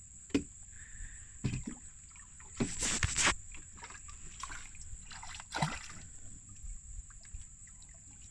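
Water splashing and sloshing with several irregular knocks against a small boat, the loudest about three seconds in, over a steady high insect whine.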